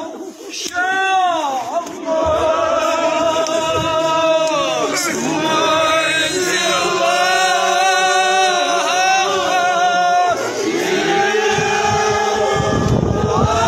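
Men's voices chanting a marsiya, the Shia elegy for the martyrs of Karbala, in a slow melody of long held notes that glide between pitches.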